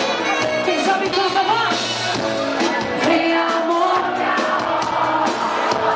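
Live band playing, with a singer's voice over a steady drum beat.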